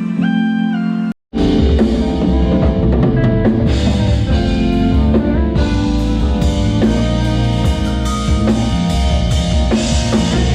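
A band playing a loud groove on drum kit, bass and other instruments. It begins with a held melodic line that slides between notes, and the sound drops out abruptly for a moment about a second in before the full band comes in.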